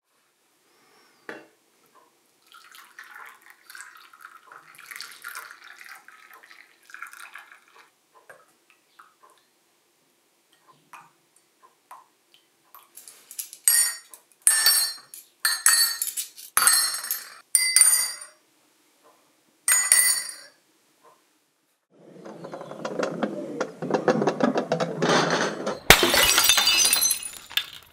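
Porcelain coffee cups, saucers and a spoon clinking sharply several times with a bright ring. Near the end a steady rushing noise builds, then a tray of porcelain cups full of coffee smashes on brick paving, shattering with a loud crash.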